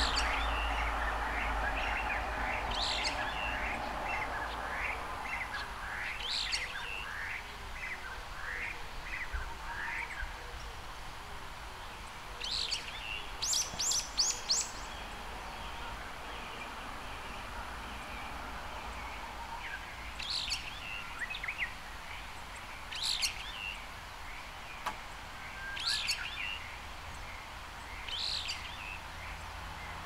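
Brown-eared bulbul calling: a run of short rising chirps through the first ten seconds, a burst of shrill high calls about halfway, then single shrill calls every few seconds.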